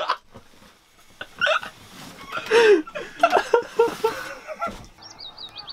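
A person's voice making short non-word sounds and laughing. Near the end comes a high, wavering tone.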